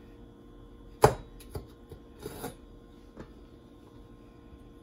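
Chef's knife slitting green chilies lengthwise on a wooden cutting board: one sharp knock of the blade on the board about a second in, then a few lighter taps and short scrapes.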